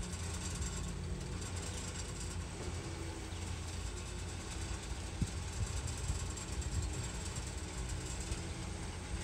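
Boat travel lift's engine running steadily with a low hum.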